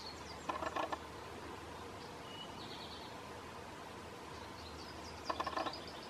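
Pileated woodpecker chiselling into a soft, rotting tree stump to dig out grubs: two short flurries of rapid pecks, about half a second in and again near the end. Faint songbird chirps in the background.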